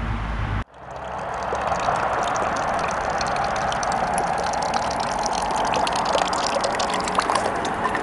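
Water running steadily from a brass tap at a stone fountain trough, splashing into a bottle held under the stream. Before it, a short low wind rumble cuts off abruptly just over half a second in.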